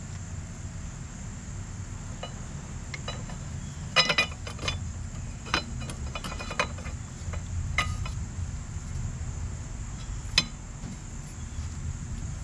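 Small metallic clicks and clinks as new brake pads and their clip are worked by hand into a motorcycle's rear brake caliper: a quick cluster about four seconds in, then scattered single clicks. A steady low hum and a steady high-pitched whine run underneath.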